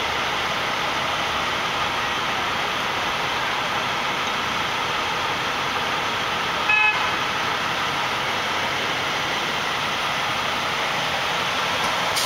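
Steady city street traffic noise, with one short car horn toot about seven seconds in.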